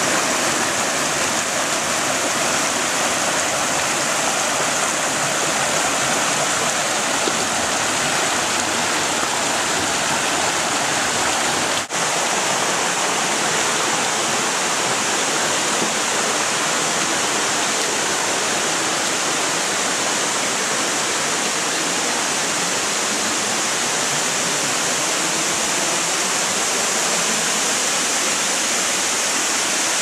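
Steady rush of water from a jungle waterfall and its stream, with one brief break about twelve seconds in.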